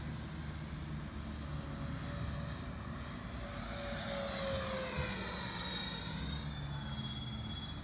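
Twin 80 mm electric ducted fans of a Freewing F-14 Tomcat model jet whining on a low pass. The whine swells about four seconds in, then drops in pitch as the jet goes by.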